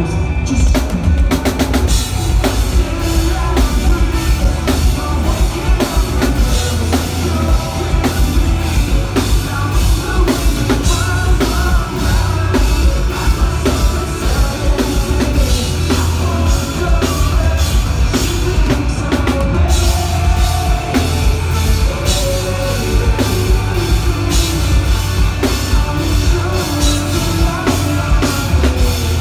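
Live rock band playing at full volume, driven by a pounding drum kit and bass drum over a dense wash of guitars and bass.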